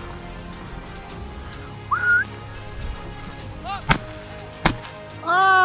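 A shotgun fires two quick shots, about three quarters of a second apart, at a flushed gamebird. A short rising whistle comes before the shots, and a loud held call follows them near the end.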